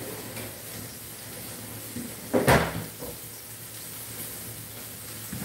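A kitchen cupboard door shutting with a single thump about two and a half seconds in, over a low steady background hum.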